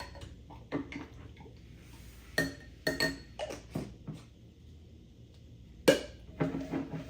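Small hard toy pieces and tubes clattering against a dish or bowl: a run of sharp clinks and knocks with a brief ring. The loudest knock comes about six seconds in.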